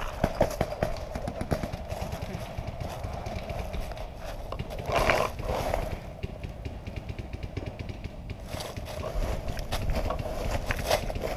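Movement through dry fallen leaves and undergrowth: irregular rustling and crunching over a steady low rumble of handling noise on a gun-mounted camera.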